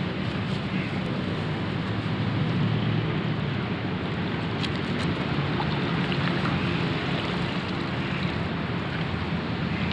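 Steady rushing of flowing river water, with a few faint ticks partway through.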